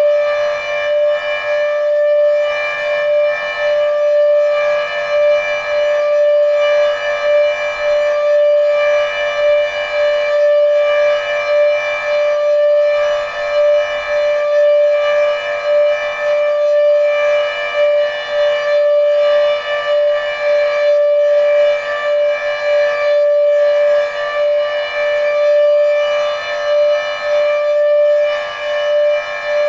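Federal Signal Thunderbeam RSH-10B outdoor warning siren sounding its steady Alert tone, one held pitch whose level swells and fades at a regular pace as the rotating beam sweeps past. This unit has a faulty reflector.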